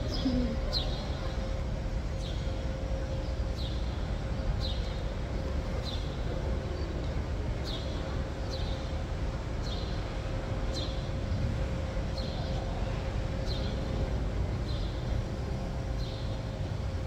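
Outdoor urban ambience: a low steady rumble under a faint steady hum, with a short high chirp repeating evenly about once a second.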